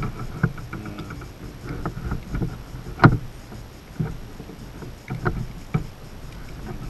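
Plastic power adapter and its cord being handled and wound, giving irregular clicks and knocks over a low rumble; the loudest knock comes about three seconds in.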